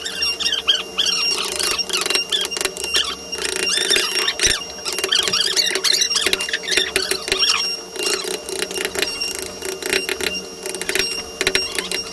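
Hand gouges and chisels cutting and scraping into a carved hardwood bracket: a dense run of quick clicks, scrapes and taps. High wavering squeaks come in around the first second and again from about three to seven seconds in.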